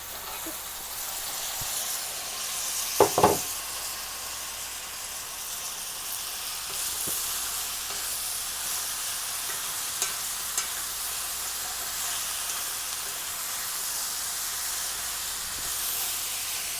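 Frozen okra sizzling in hot oil with fried onions in a pan over a full flame, a steady hiss. A loud knock about three seconds in and two small knocks near the middle.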